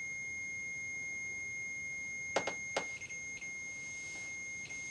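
A steady, high-pitched electronic alarm tone from a ghost-hunting gadget, dipping briefly a few times, with two soft knocks about two and a half seconds in.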